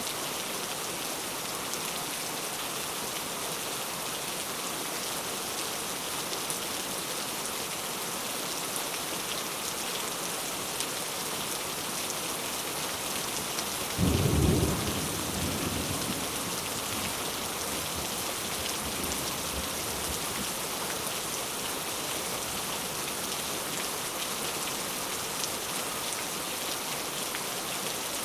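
Heavy rain falling steadily. About halfway through, a sudden crack of thunder breaks in and rumbles low before fading over a few seconds.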